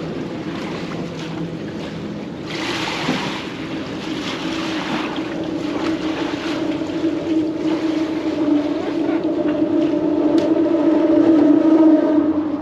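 A boat's motor running steadily, its hum growing louder toward the end, over wind and water noise. A brief rush of noise comes about two and a half seconds in.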